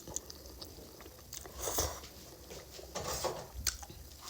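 A person eating spicy Korean instant noodles up close: chewing and mouth sounds with scattered small clicks and a few brief louder bites.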